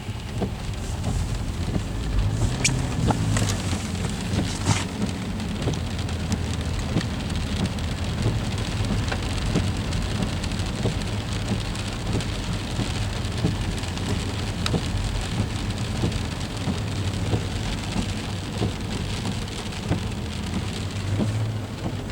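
Freezing rain coming down steadily, a dense patter with many sharp ticks of ice striking surfaces, over a low steady hum.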